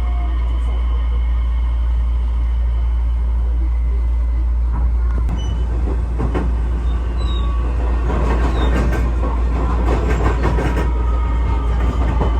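Train running on the rails: a steady low rumble with a thin whine that falls slowly in pitch, and a quick run of wheel clicks over rail joints in the second half.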